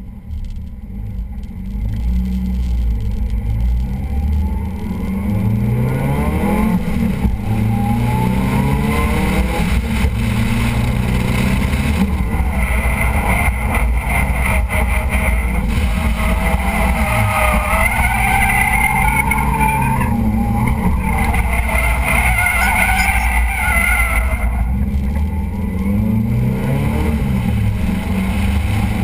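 Car engine driven hard on a track, revving up and dropping back repeatedly through shifts and lifts, with the tires squealing in long stretches through the middle of the run.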